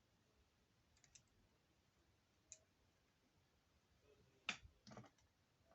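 Faint, scattered clicks of a small screwdriver and screws against a laptop's bottom panel as the panel screws are driven back in. The clicks come singly and in pairs, the loudest about four and a half seconds in.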